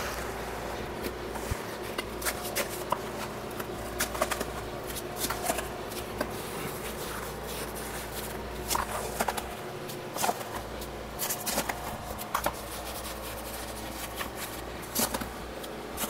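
Gloved hands scooping damp castable refractory out of a plastic bucket and packing it into a metal furnace-base ring: irregular scrapes, rustles and soft knocks over a steady low hum.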